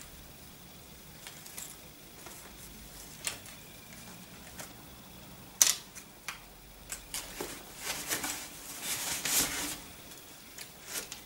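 Clothes being handled: rustling as garments are folded away and pulled out, with a sharp knock about halfway through and a longer stretch of rustling near the end.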